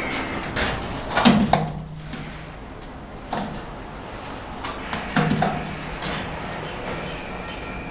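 Steel bricklayer's trowel working mortar against cement bricks: two short clusters of scraping and knocking, about a second in and again about four seconds later.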